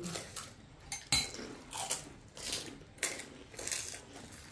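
Table sounds of a family eating panipuri. A sharp click about a second in is the loudest sound, and several short crunches follow as the crisp puri shells are bitten, over faint clinks of spoons on bowls.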